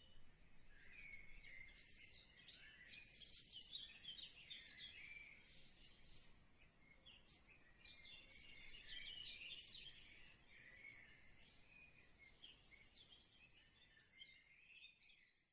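Faint chorus of small birds, many short overlapping chirps and trills that keep going until they fade out at the very end.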